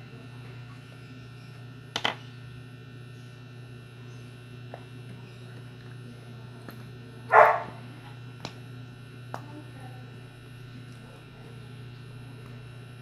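A steady electrical hum with a few light clicks, and a dog barking once, sharply, about seven seconds in.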